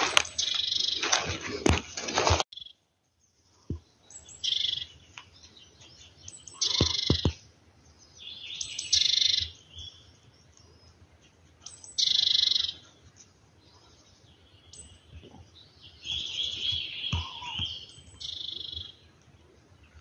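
Wild songbirds singing short, high phrases every few seconds, with quiet stretches between. For the first two seconds a louder scuffling, crunching noise covers them, then cuts off abruptly.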